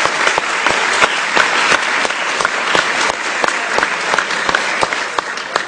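An audience of students applauding, a dense, steady run of hand claps.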